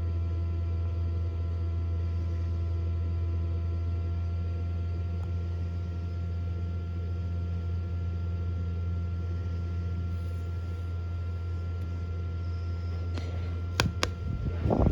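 Hovabator egg incubator running with a steady low hum and a faint constant whine above it. A few sharp clicks come near the end.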